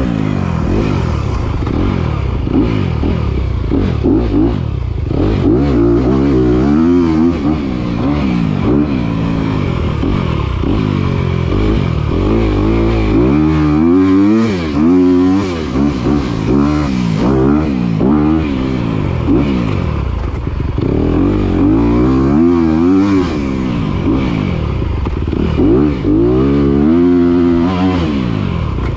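Dirt bike engine being ridden hard, its pitch rising and falling over and over as the throttle is opened and closed, with a couple of brief drops where it is shut off.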